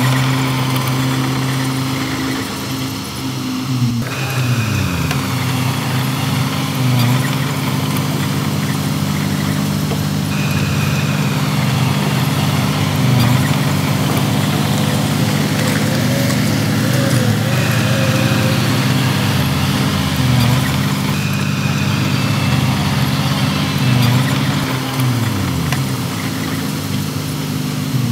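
Heavy diesel engine of earthmoving machinery running steadily. Its pitch dips briefly about four seconds in and again near the end, and a faint high whine comes and goes several times.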